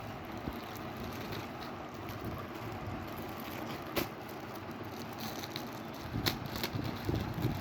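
Hands handling packaging and a manga volume during an unboxing: a sharp click about four seconds in, then clicks and rustles near the end, over a steady background hiss.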